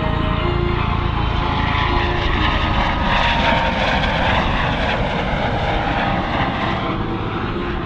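US Coast Guard MH-65 Dolphin helicopter passing overhead: steady rotor and turbine noise that builds to its loudest about halfway through, then slowly fades as it moves away.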